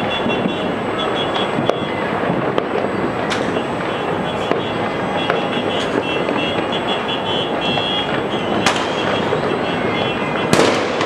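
Many fireworks going off at once: a continuous crackling din with sharper bangs every second or two, the loudest bang near the end.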